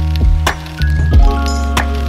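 Background music with drums and a bass line under sustained chords.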